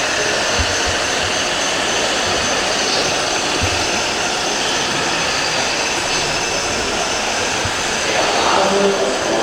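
Steady rushing noise with a few faint, high, steady whistling tones running through it. A voice is heard briefly near the end.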